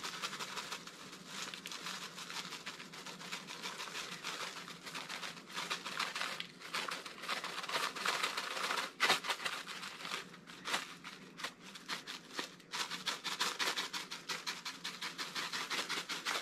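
Dried seasoning flakes rattling inside a plastic shaker jar as it is shaken again and again over a baking dish, with a few short pauses between rounds of shaking.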